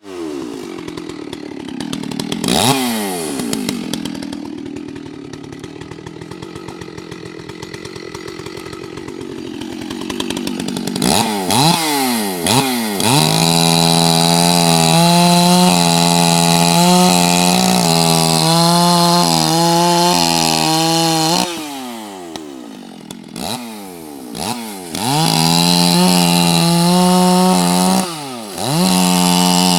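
Stihl 064 chainsaw's large two-stroke engine idling with short blips of the throttle, then revved up and held at a steady high speed, dropping back to idle twice before revving again. The owner says it is running a bit rich.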